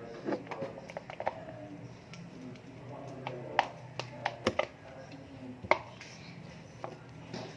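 Fluffy slime of glue, shaving foam and detergent being mixed and worked by hand, giving irregular sharp clicks, taps and small pops.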